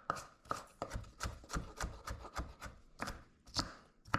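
Knife chopping a red onion on a cutting board: a quick, uneven run of knocks, about three a second.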